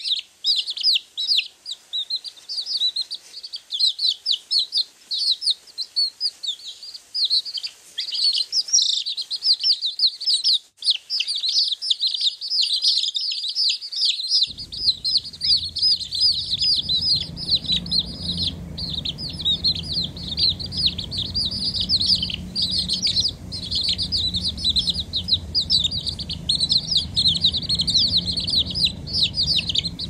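A brood of waterfowl chicks peeping constantly in thin, high, rapid calls that slide downward and overlap. About halfway through, a low steady rumble joins underneath.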